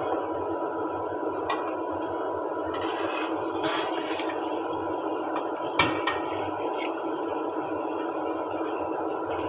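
Tap water running steadily into a kitchen sink while a large round metal tray is washed by hand, with a sharp clank of the tray against the sink about six seconds in and a few lighter knocks.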